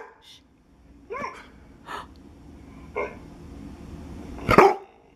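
Newfoundland puppy barks and whines played through a laptop's speakers: a few short, soft calls, then a louder bark near the end.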